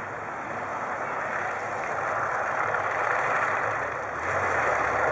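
Engine and track noise of a light tank driving across snow, growing louder as it comes closer, with a deeper rumble from about four seconds in.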